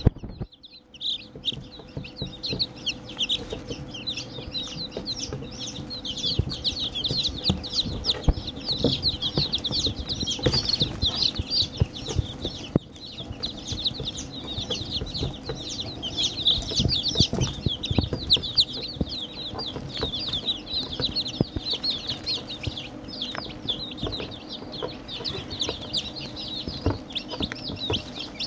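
A brood of day-old chicks peeping without a break, many short high chirps overlapping, with frequent soft knocks and scuffs close to the microphone.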